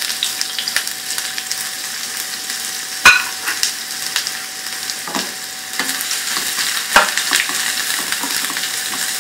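Sliced onions sizzling in hot oil in a nonstick frying pan as the tempering for a dal starts to fry. They are stirred with a wooden spoon, with a few sharp knocks, the loudest about three seconds in and another about seven seconds in.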